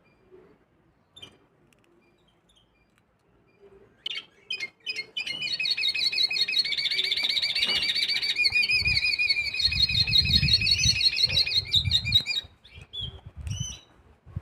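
Mixto hybrid finch singing. After a few scattered chirps it breaks into a fast, continuous trilling song of rapidly repeated notes lasting about seven seconds, then gives a few separate notes. Low thumps sound under the second half of the song.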